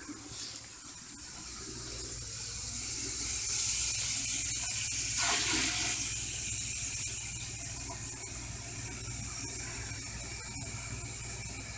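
Bathroom sink tap running, filling a metal dog bowl with fresh water; the splashing hiss grows louder over the first few seconds, then holds steady.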